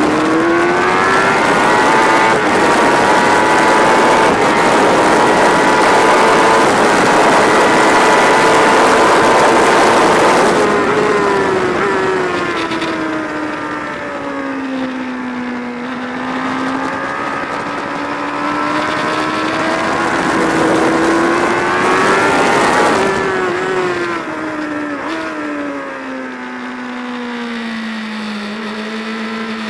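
Sports motorcycle engine under hard acceleration, heard onboard with heavy wind rush. Its pitch climbs over the first couple of seconds and holds high until about a third of the way in, then falls away as the bike slows. It rises again, drops sharply about three-quarters of the way through, and runs lower near the end.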